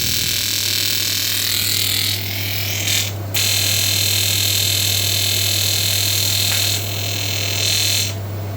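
TIG welding arc hissing and buzzing over a steady low machine hum. The arc's level rises and dips as the amperage is worked with a hand amperage controller. The arc breaks briefly about three seconds in and stops near the end, leaving only the hum.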